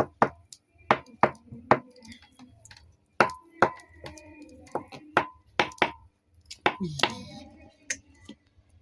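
Vegetable peeler scraping the skin off boiled potatoes: short, sharp strokes, irregular, about one or two a second.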